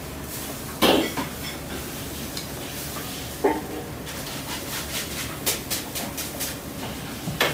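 Kitchen clatter of dishes and utensils: a sharp clink about a second in, another knock a few seconds later, then a run of quick light clicks, over a steady low hum.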